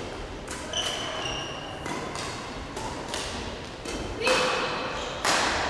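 Badminton rally: rackets striking a shuttlecock, about five sharp hits roughly a second apart, echoing in a sports hall. Short squeaks of court shoes on the floor come between the hits.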